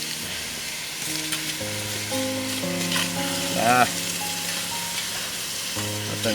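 Music of long held notes that change every second or so, with a brief warbling slide about halfway through, over a steady crackling hiss.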